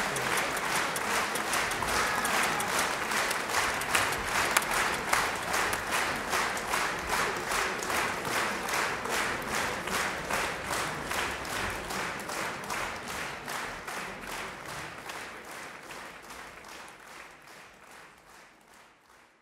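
Concert hall audience applauding, the clapping falling into rhythmic unison at about two to three claps a second, then fading away near the end.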